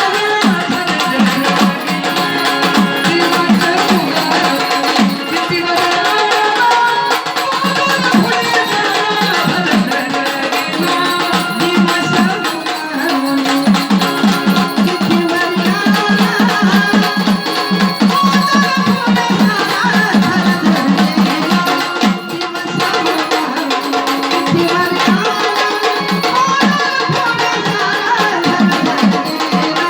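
Gondhal folk music: a sambal drum pair beaten in a fast, driving rhythm under an organ (keyboard) melody.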